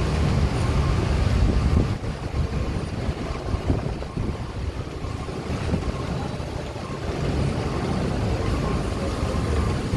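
Steady low engine rumble at a ferry dock, from the docked ferry and the vehicles around it. It eases a little about two seconds in and builds back up near the end.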